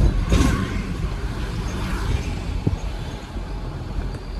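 Truck driving: a steady low engine and road rumble, with a brief louder burst of noise about half a second in.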